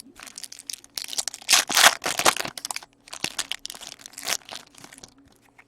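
Crinkling and tearing of a plastic-foil trading card pack wrapper being handled and opened, in two main stretches of crackling.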